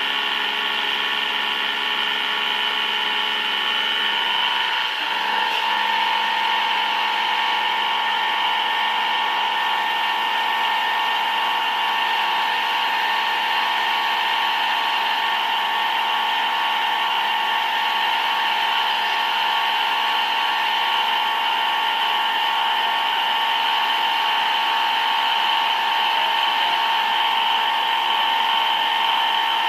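CNC machine tool running with a steady, high-pitched whine made of several held tones. About five seconds in the tone changes and one pitch grows stronger, then holds steady.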